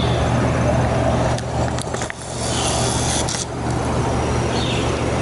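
A steady low machine hum, like a motor running, with a few faint clicks and knocks over it.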